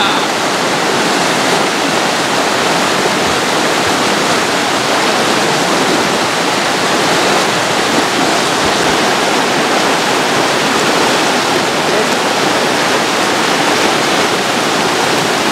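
River water rushing steadily over rocks and through small rapids, close by.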